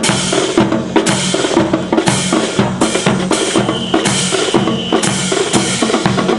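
Drumming with a steady beat of about two sharp strikes a second over a low drum tone, accompanying a rifle drill.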